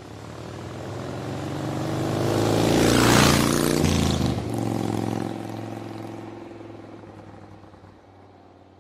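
A motor vehicle driving past: its engine note and hiss swell to a peak about three seconds in, the pitch drops as it goes by, then it fades away.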